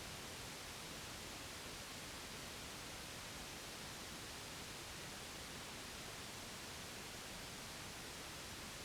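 Steady white noise, an even hiss with no change or break, played as a sleep sound for a baby.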